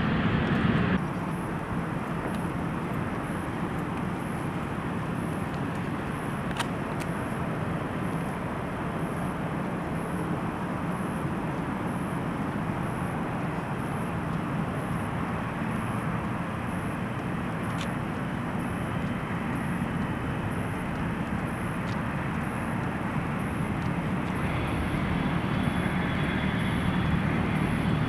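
Steady jet-engine noise from an airliner on the ground, growing somewhat louder over the last few seconds.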